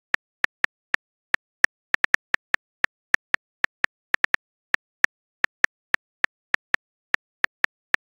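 Smartphone keyboard typing sound effect: short, identical clicks, one per keystroke, at an uneven pace of about three or four a second.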